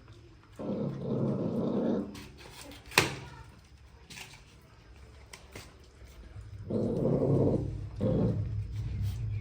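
Puppy growling: two long low growls a few seconds apart, with a sharp click between them about three seconds in.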